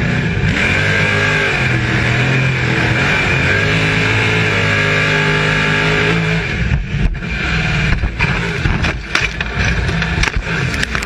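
Open-cockpit race car's engine running hard, its pitch rising and dipping with gear changes and throttle. About six seconds in the steady engine note breaks up into a run of irregular knocks and thumps as the car is thrown about off the track.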